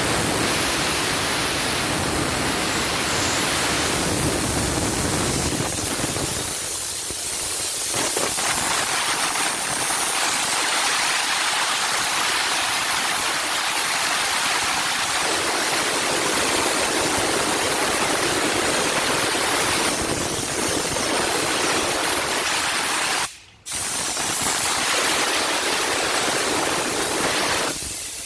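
Steam car-wash wand jetting steam in a steady hiss as it cleans a car, with one brief break in the sound near the end.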